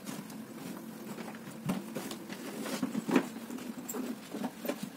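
Handling noise as a black quilted travel bag is pulled down from the top of a wall cabinet: a series of rustles and light knocks, the sharpest knock about three seconds in, over a steady low hum.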